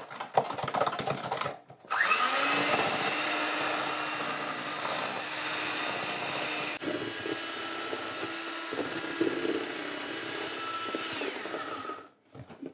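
Electric hand mixer running with its twin beaters in eggs and sugar, whipping them to a thick foam. It starts suddenly about two seconds in and runs steadily, shifting slightly about halfway, until it stops shortly before the end; before it starts there is some irregular clatter.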